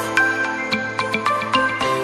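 Instrumental background music: a steady run of plucked or struck notes over held tones.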